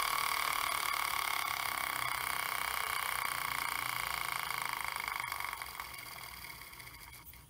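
Miniature brass steam engine running with a steady high hum and fine rapid ticking, fading away and dying out near the end.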